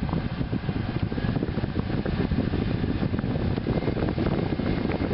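Dodge Caravan's heater and air-conditioning blower motor fan running with a steady rush of air, working again on a freshly replaced blower motor resistor.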